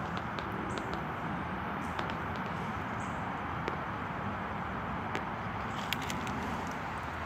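Steady urban traffic noise, an even wash of passing vehicles, with a few faint brief clicks.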